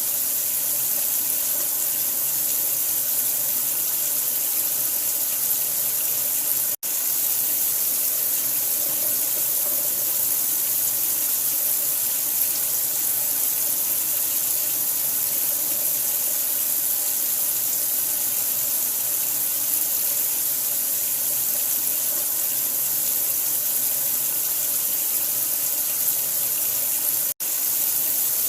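Running water with a steady, hissy rush, played continuously as a sleep sound. It cuts out for an instant twice, about seven seconds in and near the end.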